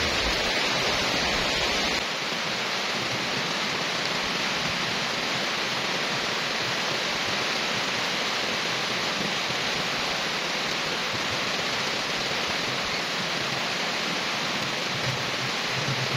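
Rain falling steadily on a wet paved road, leaves and trees: an even, dense hiss. A low rumble beneath it stops about two seconds in.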